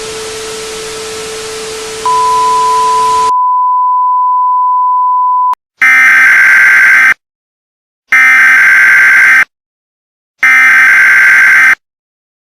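Static hiss with a steady low tone, joined about two seconds in by a loud, steady, high-pitched beep; the static cuts out and the beep holds alone until about five and a half seconds in. Then come three harsh digital data bursts, each just over a second long with about a second of silence between them: the coded header tones that open an Emergency Alert System warning.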